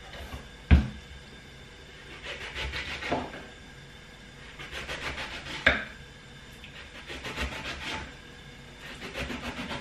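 Kitchen knife cutting a lemon on a wooden cutting board. The blade knocks sharply on the board about a second in, then comes several short spells of rasping cutting strokes, with another knock around the middle.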